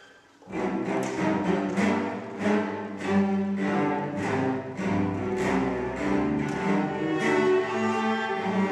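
Chamber orchestra of bowed strings playing live. After a brief silence, the strings come in about half a second in with strongly accented notes, around two a second.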